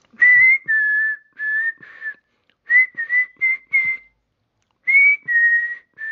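A person whistling a slow tune in short phrases of three or four notes each, with breathy air around each note.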